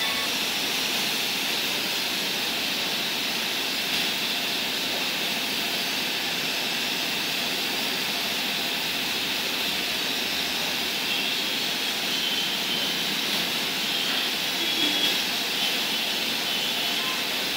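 Steady, even hiss of compressed air from a spray gun misting hydrochrome solution onto a pot in a spray booth.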